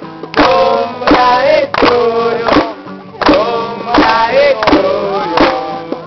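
Guitar strummed in a steady rhythm with a voice singing over it.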